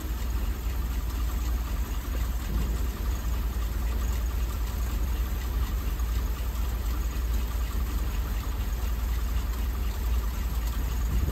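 Ford 400 cubic-inch V8 idling steadily on its automatic choke just after a cold start, a steady low rumble with a fast, light ticking over it.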